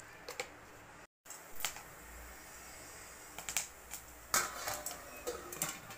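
Popcorn kernels starting to pop in a pan of hot oil: scattered single sharp pops, a few of them close together about four and a half seconds in.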